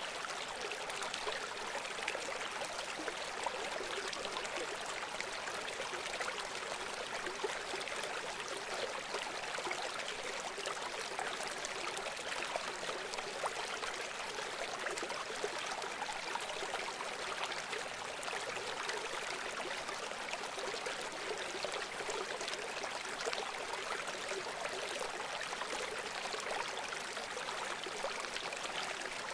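A shallow stream or river running steadily over stones, a continuous babbling with small splashes and trickles.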